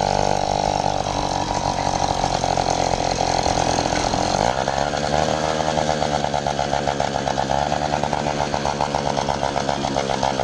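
80cc two-stroke motorized-bicycle engine running under way, with a buzzing note; about four and a half seconds in the revs climb and it runs on at the higher pitch.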